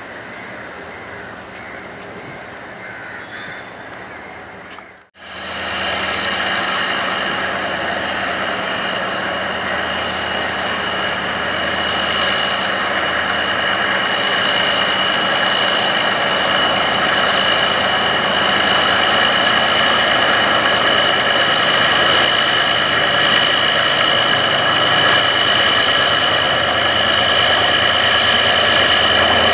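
Mainline diesel locomotive running as it approaches with its train, growing steadily louder, with a steady high whine over the engine sound. Before this, about the first five seconds hold quieter railway-station sound and then a brief drop-out at a cut.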